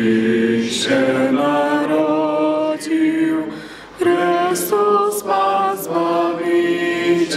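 A man's voice chanting liturgical text unaccompanied from a book, holding long notes that step up and down in pitch.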